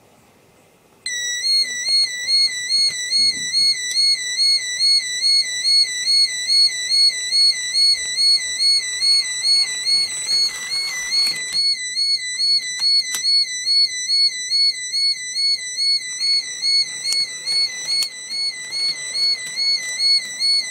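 Electronic warning alarm of a homemade model level crossing, sounding a high warbling tone that comes on about a second in and pulses about two and a half times a second. A few faint clicks are heard around the middle.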